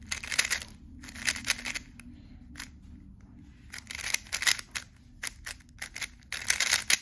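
Magnetic 3x3 speedcube with light magnets being turned fast, its plastic layers clicking in quick bursts of turns with short pauses between them.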